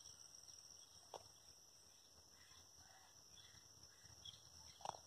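Near silence: faint outdoor ambience with a steady high-pitched insect drone, and a couple of faint ticks, one about a second in and one near the end.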